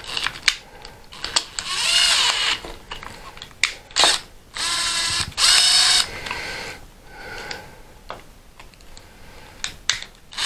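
Cordless drill-driver tightening clamps around a rolled sheet-metal cylinder, driving it down to final diameter. It runs in two spurts of a second or so each, its motor whine rising and falling, with sharp clicks in between.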